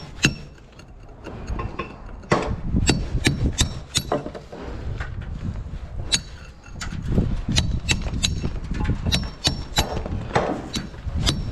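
A metal bricklaying tool striking and tapping bricks: irregular sharp taps, about one or two a second, some with a short metallic ring, with a brief lull around the middle.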